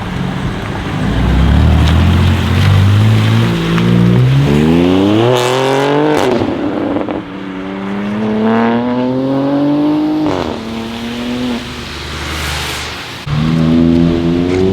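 BMW M3 G80 Competition's twin-turbo straight-six through an R44 Performance exhaust, accelerating hard: the revs climb twice with a sharp drop at an upshift between them, then the sound fades away. About a second and a half before the end a loud engine note comes in suddenly and starts climbing again.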